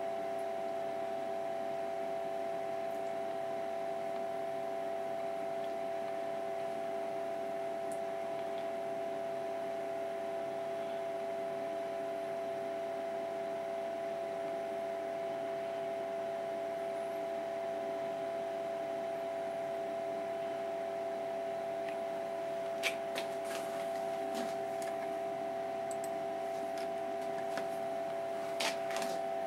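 Steady hum of a computer's cooling fan, with a few short sharp clicks in the last several seconds.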